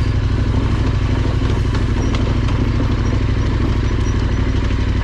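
Motorcycle engine running steadily and heard close, with an even pulsing beat and scattered light clicks.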